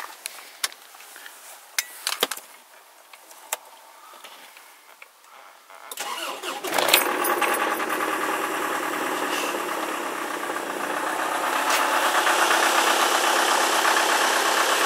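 Mazda 323F 2.0-litre diesel engine cold-started after a night at −20 °C: a few light clicks, then about six seconds in the starter cranks briefly and the engine catches with a sudden burst. It settles into a steady idle that grows a little louder after about eleven seconds.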